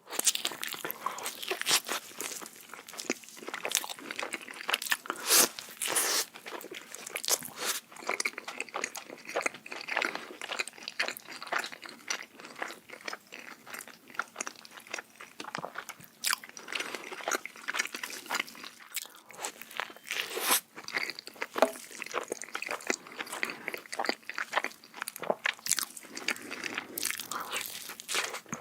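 Close-miked mukbang-style eating of a burger: crisp crunching bites and wet chewing, dense and irregular throughout.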